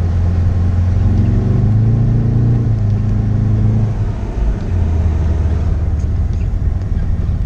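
Car engine running, its pitch rising as it revs for about three seconds, then easing off about four seconds in and settling back to a steady note.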